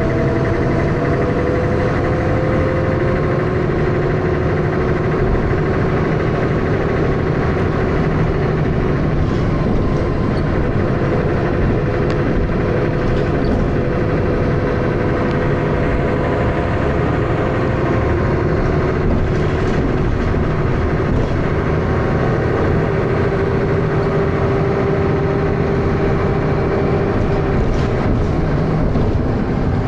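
Dennis Arrow single-deck bus engine and drivetrain running loud and rough (thrash) with a knocking noise, its pitch sliding slowly up and down with engine speed.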